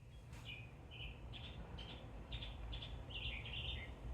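Small birds chirping repeatedly in short, quick phrases, over a steady low rumble.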